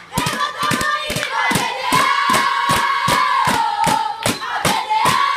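A group of spectators chanting in long held notes over steady rhythmic clapping, about four claps a second.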